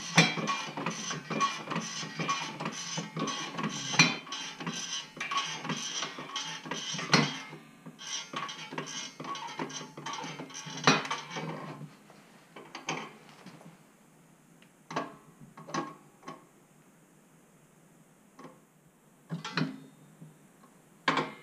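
Homemade scissor motorcycle lift worked by a foot-pumped hydraulic car floor jack: a fast run of metal clicks and clanks for about twelve seconds, then a handful of separate clicks and knocks from the steel frame and jack.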